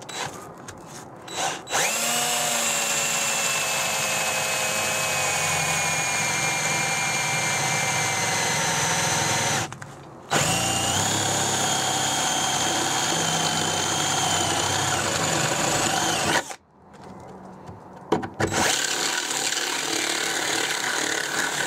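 Power drill with a twist bit boring through the steel floor pan of a 1960s Morris Minor. It runs in two long stretches, with a brief stop about ten seconds in and a quieter spell near the end, its whine sagging slightly in pitch as the bit bites. The steel is surprisingly difficult to get through here, which the owner puts down to reinforcement around the seat mount.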